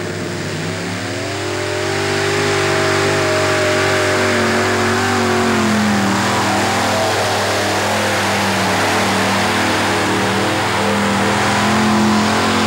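Modified pulling tractor with several V8 engines at full throttle, dragging a weight-transfer sled. The engine pitch climbs over the first two seconds and holds high, then sags about six seconds in as the engines are pulled down under the growing load.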